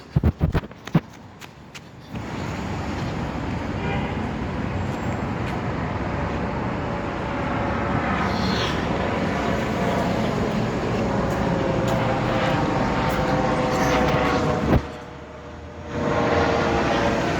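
Steady, loud vehicle noise with a faint whining tone in it, setting in about two seconds in after a few sharp clicks. It breaks off briefly near the end and then comes back.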